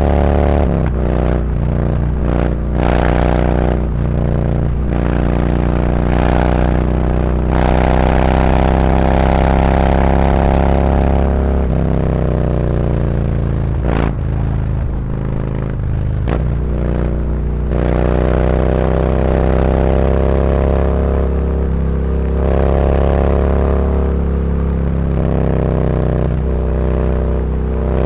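Harley-Davidson Road Glide V-twin running through SuperTrapp 4-inch slip-on mufflers while riding, accelerating and easing off so the exhaust note repeatedly rises and falls in pitch. Near the middle it slows right down toward idle, then pulls away again with the pitch climbing.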